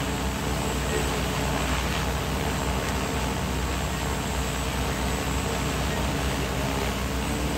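DJI Agras T10 agricultural spray drone hovering close overhead, its four rotors giving a steady, even whirring hum.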